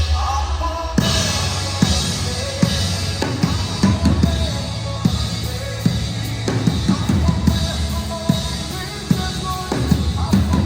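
Band music led by a full drum kit keeping a steady beat of kick and snare, over bass and sustained melodic instruments.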